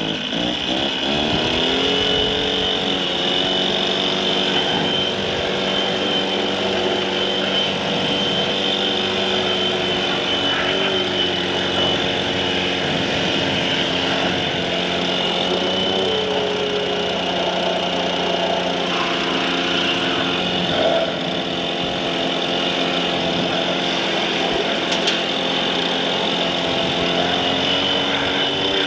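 A blower spinning up over the first couple of seconds, then running steadily at a high, even pitch as it blows lint out of a dryer cabinet, with small shifts in pitch now and then.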